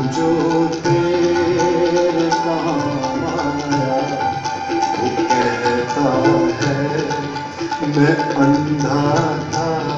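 Tabla and harmonium playing a ghazal accompaniment together. The harmonium holds notes and steps from pitch to pitch under a dense, quick run of tabla strokes.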